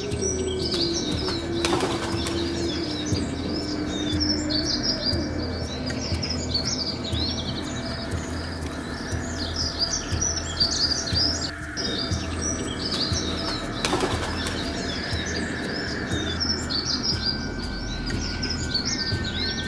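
A dense chorus of small birds chirping and twittering without a break, over a low steady hum.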